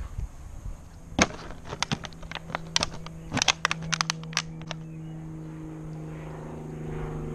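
An empty plastic water bottle crackling and clicking in a Belgian Malinois × German Shepherd puppy's teeth as it bites and tugs at it: a quick irregular run of sharp cracks over a few seconds. A steady low hum sets in about halfway through and grows a little louder toward the end.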